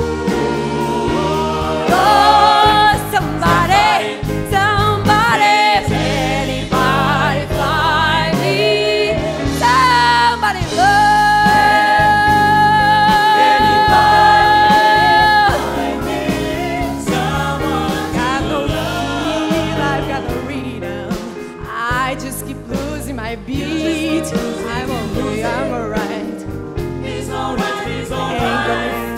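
Live rock band with a female lead singer and a backing choir, singing with vibrato. Near the middle she holds one long high note for about four seconds.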